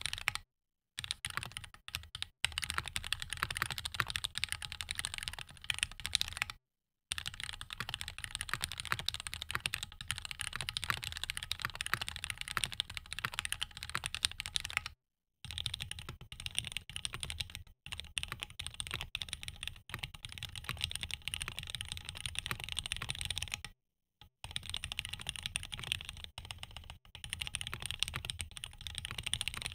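Fast, continuous typing on a Keychron Q1 Knob, an aluminium-cased, gasket-mounted mechanical keyboard fitted with Gateron Red linear switches: a dense run of key clacks. It drops to total silence for a split second four times.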